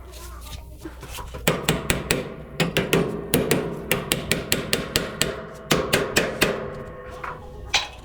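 A hammer striking metal in a quick series of blows, about four or five a second, starting about a second and a half in, with a ringing tone hanging between the hits and one last blow near the end.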